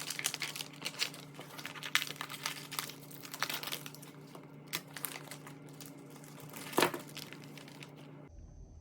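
Plastic zip-top bag crinkling and crackling as it is handled with the sablefish and marinade inside, over a steady low hum, with one sharper knock about seven seconds in. The sound changes abruptly near the end.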